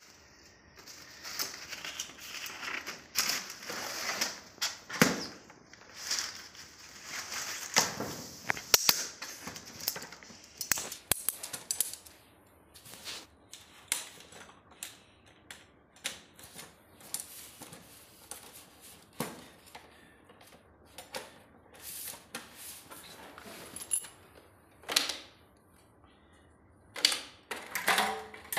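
Aluminium poles of a folding camping table frame clicking and clacking against each other and into their joints as the frame is unfolded and set up, in irregular sharp clicks and knocks. Nylon carry-bag rustling during the first ten seconds, and a louder clatter of the wooden-look tabletop slats being handled near the end.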